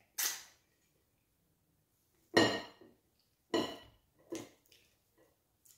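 Ceramic plate and bowl knocked by hand while eating: two loud clinks with a short ring about two and a half and three and a half seconds in, a softer one near the start, then a few light taps.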